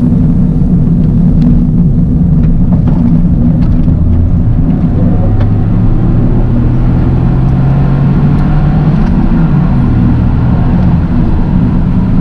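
Toyota GR Yaris three-cylinder engine running under way with road noise, a steady drone whose engine tone holds for a few seconds in the middle and then drops slightly.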